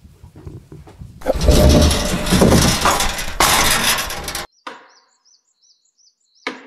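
A loud rushing noise, heavy in the low end, runs for about three seconds and cuts off sharply. In the quiet after it a small bird chirps about six times, then a wooden mallet strikes a timber of the frame once with a sharp knock near the end.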